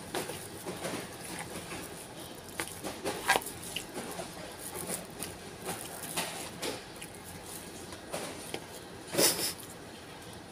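Close-up eating sounds: chewing and mouth noises over rice and bitter melon, with a metal spoon scraping and tapping in a plastic-bag-lined bowl. Irregular soft clicks and crackles, the two loudest about three seconds in and about nine seconds in.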